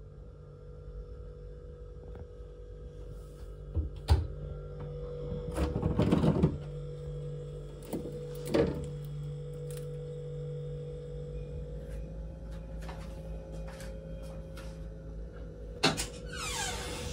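Handling sounds of cabinet and mini-fridge doors being opened and shut, with a few sharp clicks and knocks and a short rattle about six seconds in, over a steady low hum. Near the end, wooden double closet doors are pulled open with a click and a brief scrape.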